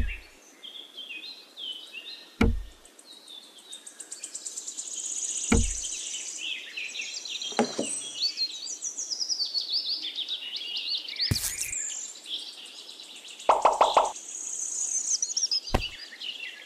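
Songbirds chirping and trilling steadily, with about seven sharp knocks spaced a couple of seconds apart as small clay pieces are set down.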